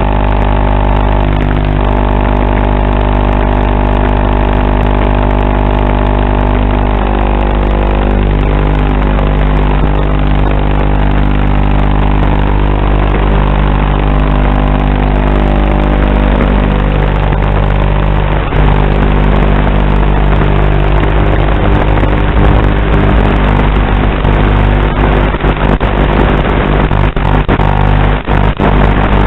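FPV quadcopter's brushless motors, carried on the analog video link's thin, low-bandwidth audio. A steady pitched whine holds at idle after arming, then shifts up and down in pitch as the throttle changes from about eight seconds in. Brief crackles and dropouts come near the end.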